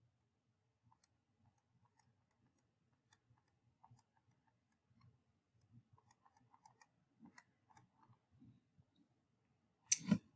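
Faint, scattered clicks and taps of a stylus writing on a digital slide, with one louder short knock near the end.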